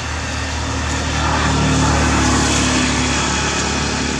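A small engine running steadily. It grows louder toward the middle, then eases off slightly.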